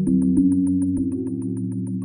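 Background music: sustained synthesizer chords under a quick, even pulse, the chord changing about a second in.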